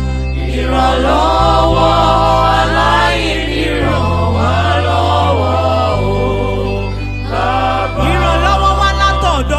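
Gospel worship music: voices singing a melody over sustained low chords that change about every two seconds.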